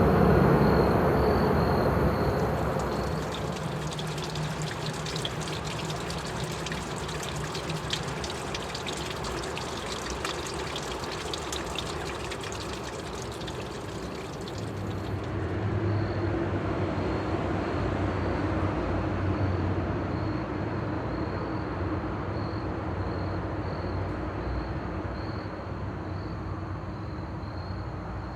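Water running in a creek, a steady hiss and trickle, under a continuous high insect chirring. A louder, deeper rumble fades away over the first few seconds.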